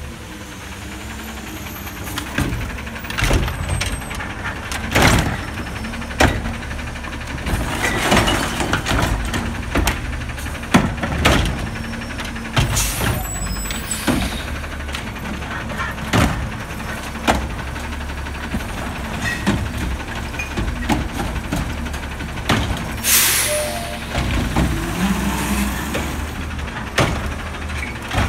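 Garbage truck with a front-mounted carry can and automated side arm running steadily while it works its hydraulic arm, with repeated clunks and knocks as carts are grabbed and tipped. Air hisses loudly twice, about 13 and 23 seconds in.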